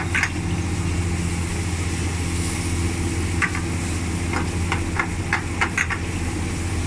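Spaghetti sizzling as it is tossed and stirred in a nonstick frying pan over a gas burner, with oil frying in a wok alongside. A wooden spatula scrapes and taps the pan in a run of short clicks in the second half, over a steady low hum.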